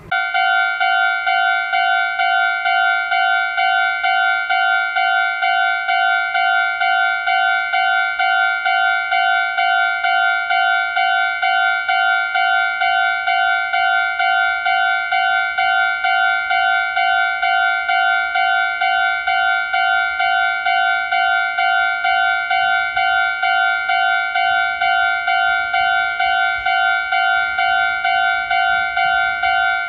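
Japanese railway level crossing warning bell sounding: a loud electronic two-tone ding repeating evenly without a break, which starts abruptly. It signals that the barriers are down for an approaching train.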